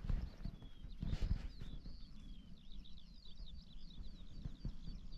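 A small bird singing a fast run of high chirps over a low outdoor rumble, with a couple of knocks in the first second and a half.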